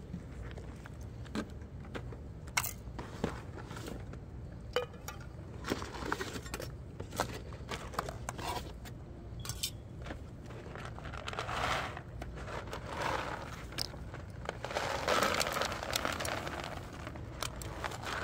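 Cardboard and packaging rustling and crinkling as a hand rummages in a plastic basket of cat-food supplies, with scattered sharp clicks and knocks; the rustling swells twice in the second half.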